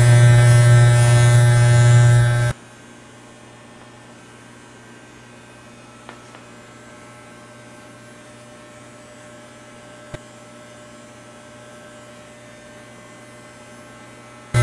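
Corded electric hair clippers buzzing steadily while tapering short hair at the nape. About two and a half seconds in the buzz drops away suddenly to a faint steady hum, with a couple of soft clicks.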